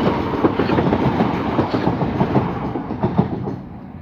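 Class 395 electric multiple unit passing, its wheels clattering over the rails in a quick run of clicks over a steady rumble, fading away near the end.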